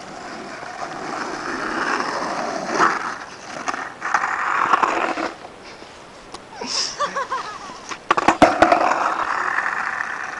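Skateboard wheels rolling and scraping on asphalt, with a quick cluster of sharp board clacks about eight seconds in, followed by more rolling.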